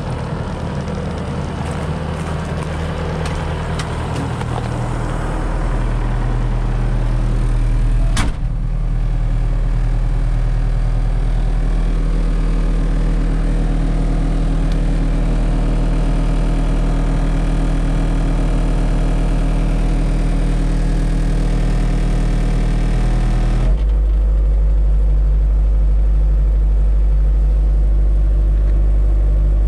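2012 Bobcat Toolcat 5610's diesel engine running steadily, with one sharp knock about eight seconds in. About three-quarters of the way through the sound turns duller and deeper.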